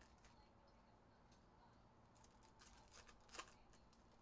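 Near silence, with faint clicks and rustles of trading cards being handled, clustered around three seconds in.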